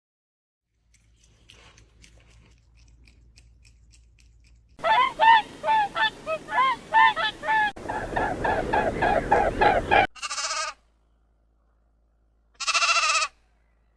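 Fowl calling in a run of short calls that rise and fall in pitch, about two a second, starting about five seconds in. Around the middle the calls give way to a denser overlapping chorus over background noise. Two short separate calls follow near the end.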